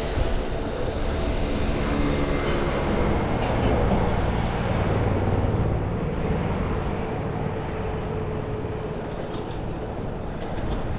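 City traffic noise heard from a moving bicycle, with wind rushing over the action-camera microphone. A steady engine hum from a nearby vehicle fades away after about three seconds.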